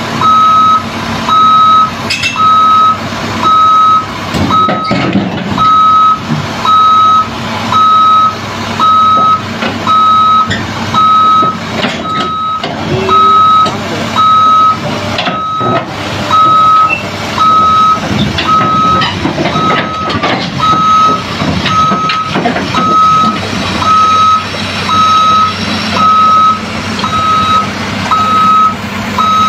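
A crawler excavator's travel alarm beeping at one steady pitch about once a second while the machine tracks down the ramps off a lowbed trailer. The excavator's engine runs steadily underneath.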